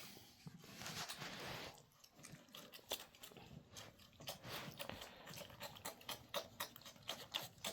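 Faint, scattered clicks, scuffles and mouth sounds from month-old Tibetan Mastiff puppies moving about and mouthing.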